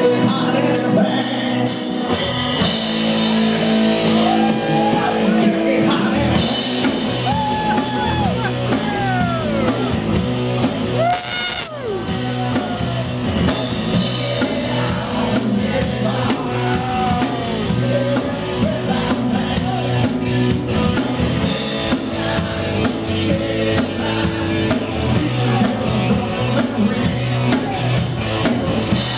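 Rock song with a singer and a steady drum beat.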